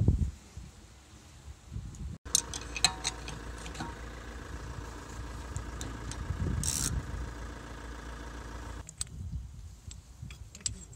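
An engine running steadily, starting just after a brief break about two seconds in and cutting off abruptly near nine seconds. Under it are scattered light metallic clinks of hand tools on the brake disc and caliper.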